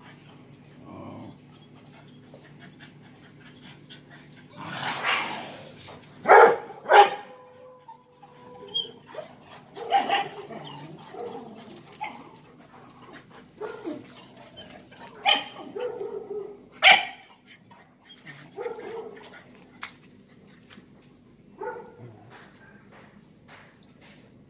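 Confined dogs barking in a string of sharp barks, the loudest about a third of the way in and again past the middle, with brief whining between. They are worked up during mating season.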